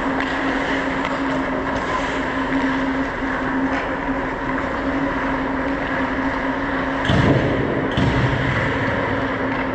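Ice-hockey skates gliding and scraping on ice, with a steady rush of noise and a constant hum over a player-worn camera's microphone. Two sharp knocks come about seven and eight seconds in.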